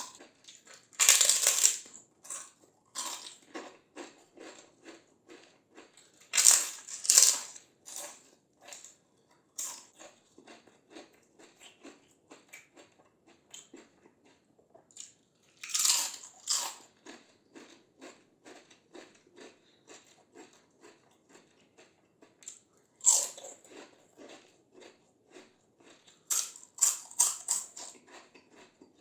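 Close-up crunching of crispy fried Indian snacks (papad and kachri): loud bites about a second in, at around six to seven seconds, around sixteen and twenty-three seconds, and a quick run of bites near the end, with steady crackly chewing between them.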